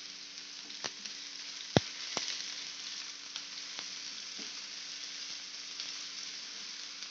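Chopped onion frying in oil in a non-stick pan, a steady sizzle, while a silicone spatula stirs it with a few sharp clicks against the pan, the loudest about two seconds in.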